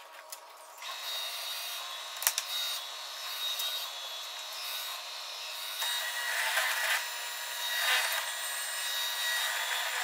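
Benchtop drill press running with a 5/16-inch bit, its motor starting about a second in. Near the end the bit bores into the wooden roof boards, with louder spells of cutting.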